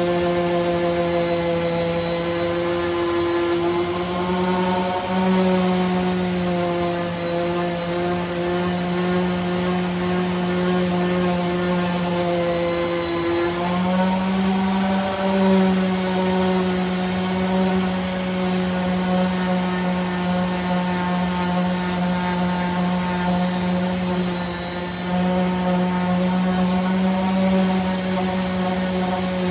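Electric random orbital sander running steadily as it sands a wooden door, a droning hum that wavers slightly in pitch as it is pressed and moved, dipping briefly about halfway through.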